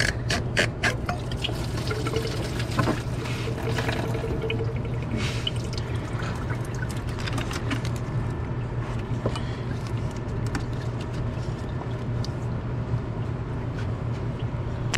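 Engine coolant pouring and trickling into a catch can from the just-disconnected lower radiator hose at the thermostat housing of a GM 4.2 L inline-six, a steady flow with a few sharp clicks in the first second.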